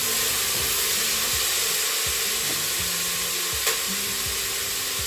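Chopped peppers sizzling steadily as they fry in coconut oil in an electric pressure cooker's inner pot on its sauté setting. A short tap sounds about three and a half seconds in.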